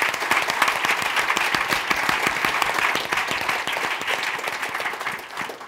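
Audience applauding: dense clapping from a room full of people, dying away near the end.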